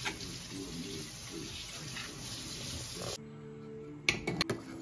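Chutney sizzling in a pan as a spoon stirs it, a steady hiss. It cuts off a few seconds in, giving way to a steel ladle clinking sharply against a metal soup pot, over a few faint held tones.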